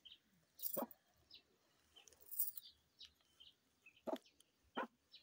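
Metal spoon knocking and scraping faintly against an opened animal skull as brain is scooped out: a sharp click about a second in, a short scrape midway, and two more clicks near the end.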